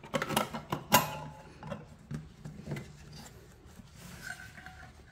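Knocks and clatter of a wooden wall clock case being handled and moved on a table, a quick run of clicks in the first second with the loudest knock about a second in, then a few faint taps.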